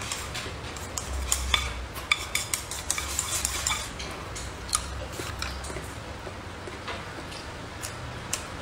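Wooden chopsticks clicking and scraping against a ceramic bowl as fried rice is scooped into the mouth, in a quick flurry over the first few seconds, then only occasional clicks.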